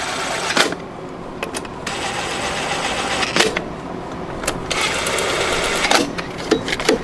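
Bolts being driven back in to hold the engine cover down on a Briggs & Stratton mower engine, heard as several runs of even mechanical whirring, each a second or so long, with sharp clicks between them.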